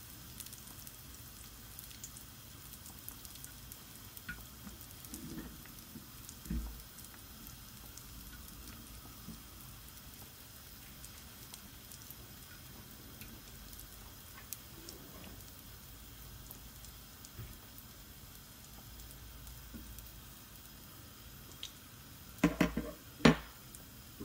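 A sfenj dough ring frying in hot oil in a skillet: a faint, steady sizzle with fine crackles. Near the end come a few loud, sharp knocks.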